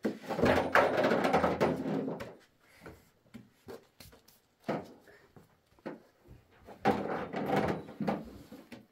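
Handling noises: rubbing and scraping with many small knocks and clicks, in two stretches of about two seconds each, one at the start and one about seven seconds in, with a few scattered knocks between.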